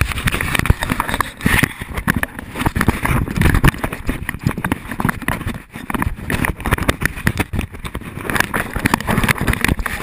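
Handling noise on the camera's microphone: dense, irregular rubbing and knocking as the covered camera is jostled.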